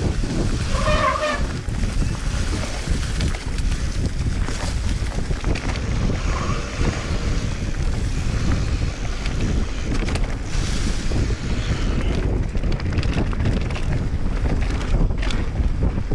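Mountain bike riding a rough trail: wind buffeting the microphone over a steady low rumble of tyres, with constant small clicks and rattles from the bike over the ground.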